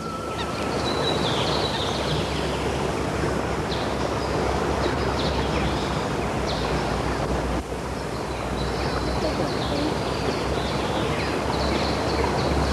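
Outdoor riverbank ambience: a steady rushing noise with small birds chirping now and then.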